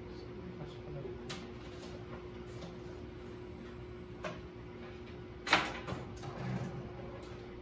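A few sharp clicks and knocks of hard plastic being handled, the loudest about five and a half seconds in and followed by smaller rattles, over a steady low hum.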